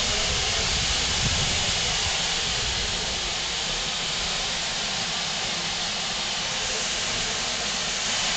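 Steady hiss of steam escaping from a standing steam locomotive, strongest in the high range, easing slightly after a couple of seconds.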